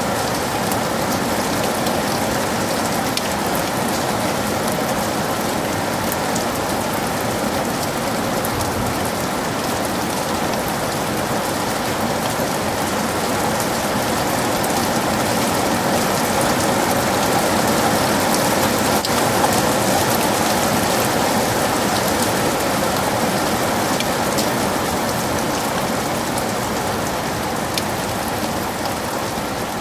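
Heavy rain falling steadily on foliage and ground, a dense even hiss full of small drop patters.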